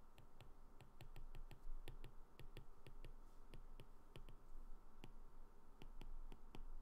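Stylus tip clicking and tapping on a tablet's glass screen while words are handwritten: faint, irregular ticks, several a second.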